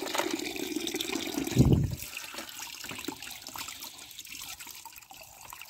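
Water pouring into a plastic bucket of muddy water and over a plastic toy truck being rinsed, with a short dull thump just under two seconds in. After the thump the pouring turns to a quieter trickle that fades.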